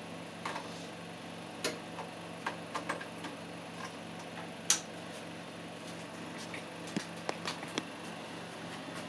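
Scattered light clicks and taps of hands handling desktop computer parts and cables, with one sharper click about halfway through and a quick run of clicks near the end, over a low steady hum.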